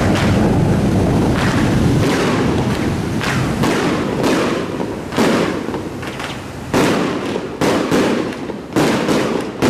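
Strings of firecrackers going off in irregular rapid cracks, then louder single bangs about a second apart in the second half, set off for a ship launch. A low rumble lies under them and fades after the first couple of seconds.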